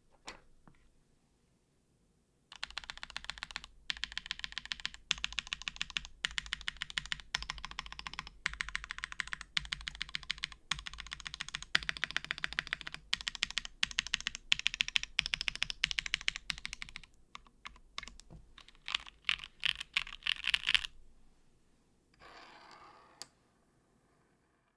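Plateless 7V mechanical keyboard, with Gateron Oil King switches on Kailh Black stems and GMK keycaps, having its modifier keys and lubed, Gateron Ink-stabilized spacebar pressed over and over in rapid runs of clicks. Near the end the presses thin out into separate, louder strikes, followed by a brief soft rustle.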